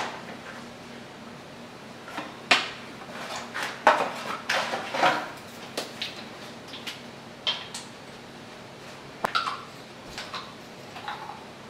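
Hands handling a plastic sandwich bag and a food-colouring bottle: irregular clicks, taps and rustles, busiest a few seconds in, with a few more near the end.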